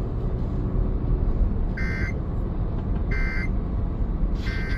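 Emergency Alert System end-of-message data bursts: three short two-tone digital screeches about 1.3 seconds apart, over a steady low rumble.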